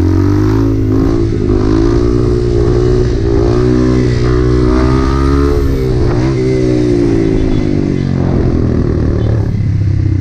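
Dirt bike engine revving hard under acceleration for a wheelie attempt. Its pitch climbs and holds high, dips briefly about six seconds in, then falls away as the rider backs off the throttle about eight seconds in.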